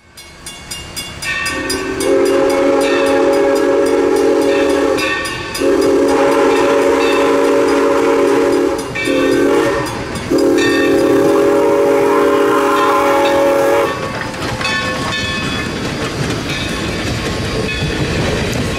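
Steam locomotive's chime whistle sounding the grade-crossing signal: two long blasts, a short one and a long one, several tones sounding together. The locomotive then rumbles past, with a crossing bell dinging rapidly throughout.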